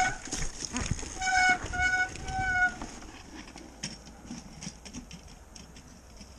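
Mountain bike disc brakes squealing with a high steady tone, broken into three short pulses in the first three seconds. Then light clicking and rattling from the bike over rough snowy ground, fading as it slows.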